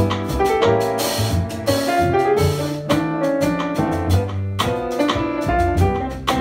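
Jazz piano trio playing a ballad: grand piano melody and chords over a plucked upright bass line, with drums and cymbal keeping time softly.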